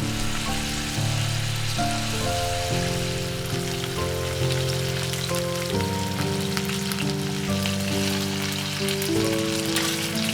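Food sizzling and crackling as it fries in a cast-iron frying pan, a steady crackle under background music of held notes that change every half second or so.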